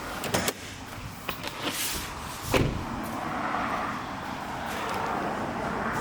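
A car door on a Lexus LM shuts with a single thud about two and a half seconds in, after a few light clicks of handling, followed by a steady low hiss.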